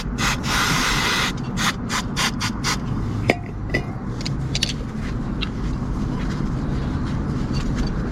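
Scrubbing strokes cleaning a dirty scooter front brake caliper, rubbing and scraping back and forth about three times a second. They stop about three seconds in, followed by a couple of light clicks.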